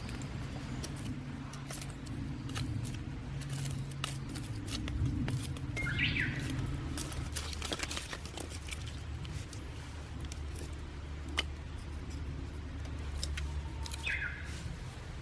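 Wood campfire crackling with scattered sharp snaps over a low steady rumble, while a bird calls briefly twice, about 6 seconds in and again near the end.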